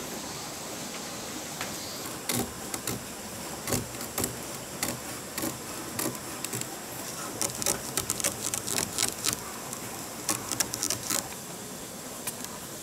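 Utility knife trimming excess window-screen mesh along the frame's edge: a run of short, sharp cutting strokes and clicks that come faster in the second half.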